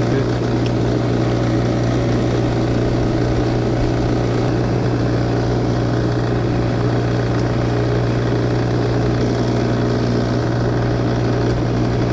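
A steady, low motor hum at a constant pitch.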